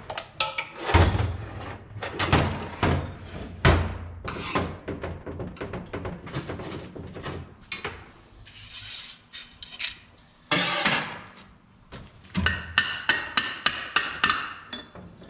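Irregular metal knocks and clanks as a 48RE transmission case and its internal parts are worked and handled on a steel workbench while the stubborn rear center support is freed. Near the end comes a quick run of knocks with a bright metallic ringing.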